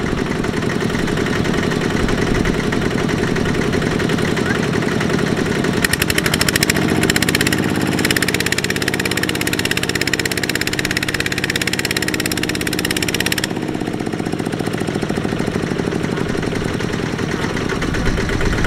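Kubota RT120 power tiller's single-cylinder diesel engine running under heavy load, hauling a loaded trailer through deep mud. It revs up about six seconds in and drops back to a lower speed about thirteen seconds in.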